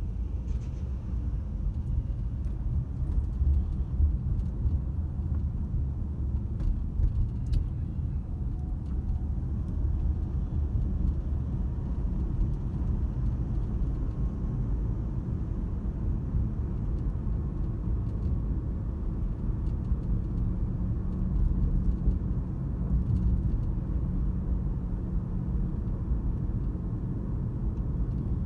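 Steady low rumble of a car driving on a city street, heard from inside the cabin: engine and tyre noise, growing a little louder in the first seconds as the car gets under way.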